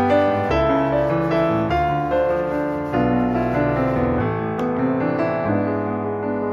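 Background piano music, a continuous run of notes at a steady level.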